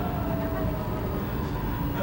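Saarbahn light rail tram running along street track, heard from inside the cab: a steady rumble of wheels on rails and running gear, with a few faint, steady whining tones above it.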